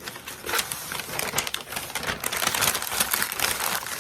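Packaging crinkling and rustling as items are handled and pulled out of a box, a dense run of crackles and small clicks.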